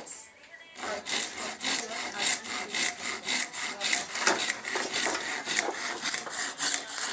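Wood being sawn by hand in quick, even back-and-forth strokes, starting just under a second in after a brief pause.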